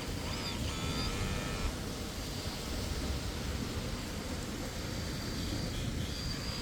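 Kobelco K961 hydraulic excavator's engine running with a steady low rumble, with a few brief high squeaks in the first two seconds.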